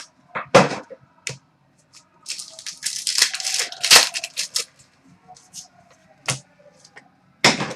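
Trading cards being handled and flipped through: a run of sharp card-edge clicks and flicks with rustling, densest in the middle.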